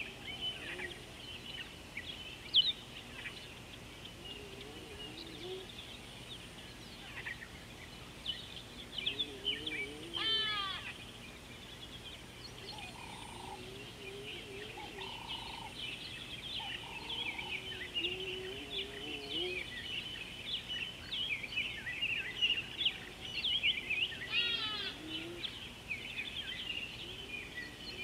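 Mixed chorus of wild birds calling, with many overlapping high chirps and falling calls, some lower warbling calls, and three short, steady, lower notes about halfway through.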